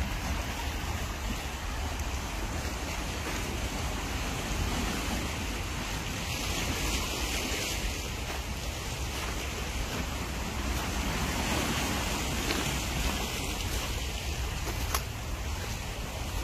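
Small sea waves washing over rocks and pebbles at the shoreline, a steady rushing wash, with wind buffeting the microphone.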